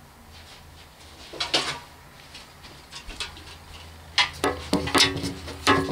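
Camera handling noise: scattered knocks and rustles, a few about a second and a half in and a cluster in the last two seconds, over a low steady hum.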